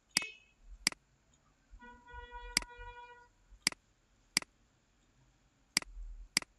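Computer mouse clicking seven times, singly and in pairs. A brief steady pitched tone sounds for about a second and a half in the middle.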